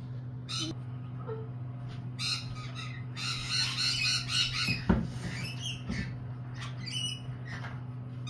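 Lorikeets calling in short harsh screeches, with a burst of rapid chattering in the middle. About five seconds in there is a single low thump, the loudest sound, and a steady low hum runs underneath.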